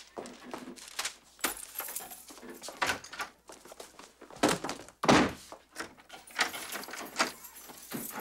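Footsteps on a hard classroom floor and a series of knocks and thunks from a door being handled, with lighter clattering between; the loudest thunk comes about five seconds in.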